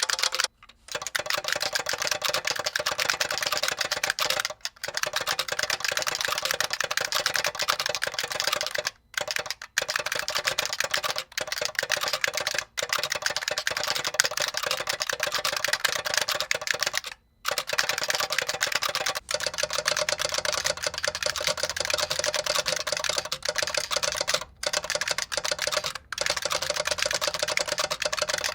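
Fast typing on a Model F62 buckling-spring keyboard fitted with a solenoid that knocks under each keystroke: a dense run of loud clicks broken by a few short pauses.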